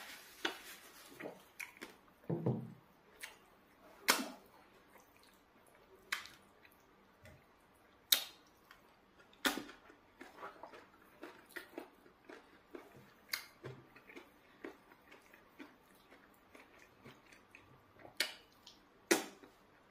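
Close-miked mouth sounds of a person eating eba and spinach soup: chewing and wet lip smacks, with a louder sharp smack every second or two. A short low hum of the voice about two and a half seconds in.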